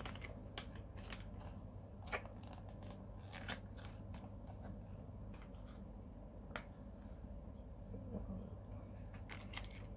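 Sheet face mask pouch being torn open and handled: faint scattered crinkles, rips and clicks of the packaging.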